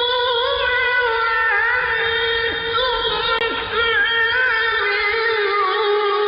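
A male Quran reciter holding one long, high melismatic note in mujawwad-style recitation, the voice ornamented with small pitch turns and settling lower near the end. A faint low rumble of an old recording lies beneath.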